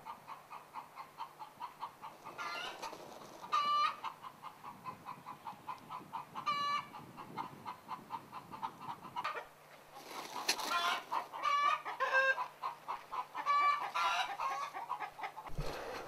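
Farmyard poultry clucking: a steady run of soft clucks, about four a second, with louder single calls every few seconds.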